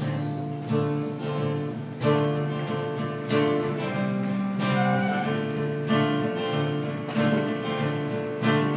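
Acoustic guitar strummed solo, chords struck about once every second and a bit and left to ring, as a song intro.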